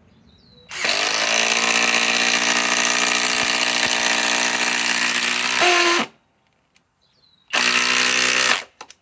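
SKIL PWR CORE 20 cordless impact driver hammering a 6-inch TimberLOK screw into a wooden beam. It runs steadily for about five seconds, stops, then gives a second, shorter burst of about a second.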